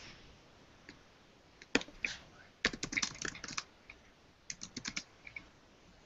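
Typing on a computer keyboard: about three short runs of quick key clicks with brief pauses between them.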